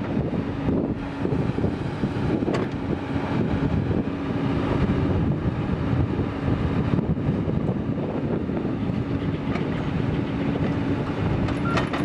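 Komatsu PC228USLC-1 excavator running, its six-cylinder diesel engine working with a steady whine over a rumbling, rattling drone and a sharp clank twice.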